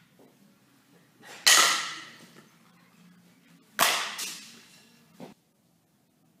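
Softball bat striking a tossed softball twice, about two seconds apart: two sharp cracks, each ringing off briefly. A fainter knock follows about a second after the second hit.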